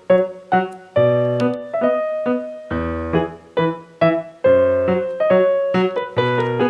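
Background music played on a piano-like keyboard: chords and notes struck every half second or so, each dying away before the next.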